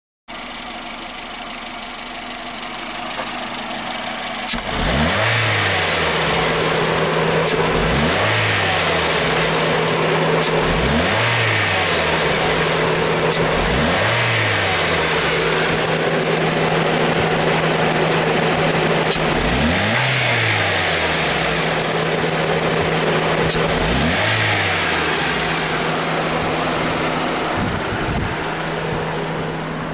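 Honda Fit's L15A four-cylinder engine starts idling, then is blipped repeatedly, about six short revs a few seconds apart, each rising and falling back to idle, over a steady hum. The engine stumbles under throttle: the uploader describes it as misfiring when the gas is pressed.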